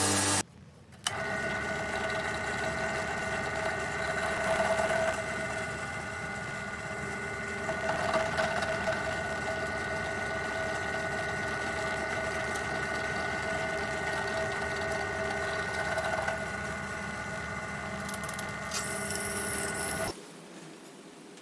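Benchtop drill press motor running steadily with a whine, swelling a little now and then as the bit cuts, drilling holes in the cleaver's steel tang; it stops abruptly near the end.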